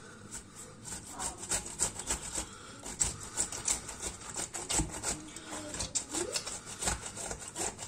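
Tomato grated on a stainless-steel box grater: rapid, repeated rasping strokes, several a second.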